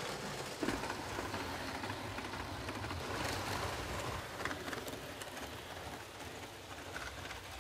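Model Class 37 diesel locomotive hauling Mk1 coaches along the track: a steady running noise of motor and wheels with small clicks, loudest about three seconds in as the train passes close, then easing off.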